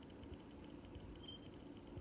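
Harbor Breeze Cheshire ceiling fan running in reverse at low speed: a faint steady hum, with a faint, rapid high ticking about nine times a second.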